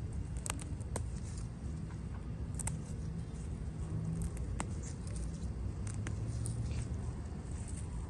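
Cilantro leaves rustling under a hand working through the plants, with a handful of sharp, brief clicks scattered through, over a steady low rumble.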